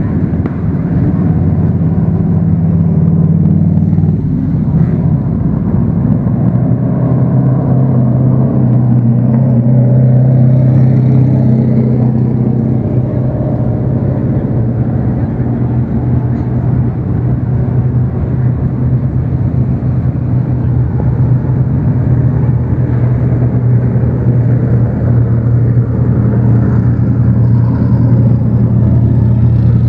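Engines of vintage race cars running steadily at low revs as the cars roll slowly past, a loud, deep, even drone.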